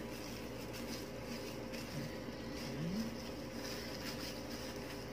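Steady low electrical hum and room noise, with faint soft rustles as a brush and plastic-gloved hands work straightening cream through hair.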